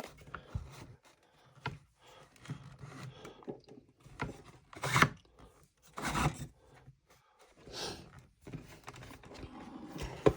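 Handling noises: light clicks and rubbing, with three louder scraping rustles about five, six and eight seconds in and a sharp click near the end.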